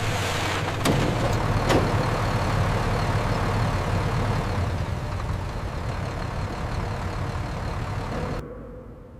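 Industrial wood chipper running steadily with a heavy engine drone, with two sharp knocks about one and two seconds in. The noise drops off suddenly near the end.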